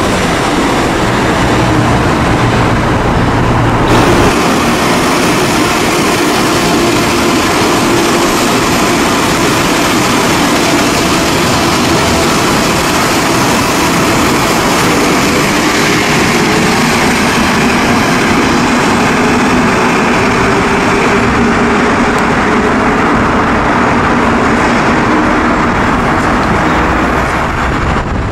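Rubber-tyred metro train running past, a loud steady rush of running noise with faint humming tones under it. The sound changes abruptly about four seconds in.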